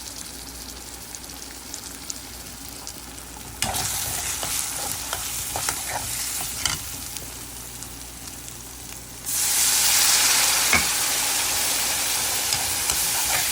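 Onion, garlic-ginger paste, tomato and ground spices frying in hot oil in a pan, sizzling while being stirred, with scattered clicks of the utensil against the pan: the masala being fried down before the dried fish goes in. About nine seconds in the sizzle turns suddenly much louder and hissier.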